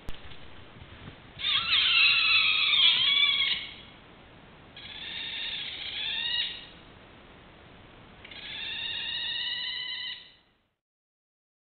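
Three drawn-out, wavering, high-pitched animal calls, each about two seconds long with short pauses between them, from a wild mammal at night; the first call is the loudest. The sound cuts off suddenly near the end.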